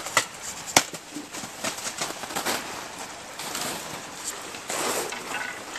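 Water sloshing and splashing around a person's legs as they wade through a shallow stream, with irregular knocks and clicks, the sharpest about a second in.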